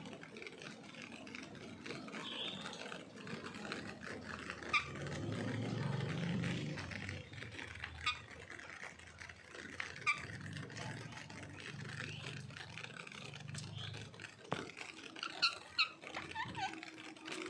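Steady rain falling, with a parrot giving short, sharp squawks now and then, a quick cluster of them near the end. A low hum sits underneath through the middle.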